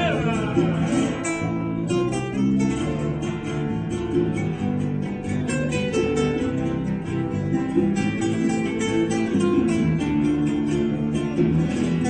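Classical guitar played solo, opening on a strummed chord, then a busy, continuous stream of quickly plucked notes and chords.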